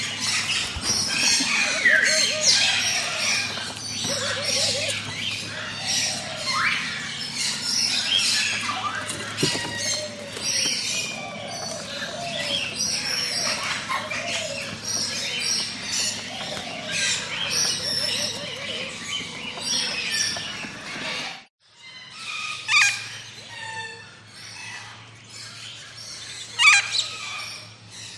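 A dense chorus of tropical forest birds: many overlapping chirps, whistles and squawks, some gliding in pitch. The sound cuts out abruptly about three-quarters of the way through, then sparser, separate calls follow.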